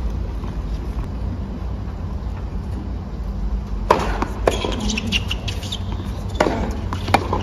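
Tennis ball being struck and bouncing during a rally on a hard court: sharp, separate cracks of racket on ball and ball on court, starting about four seconds in, over a low steady outdoor rumble.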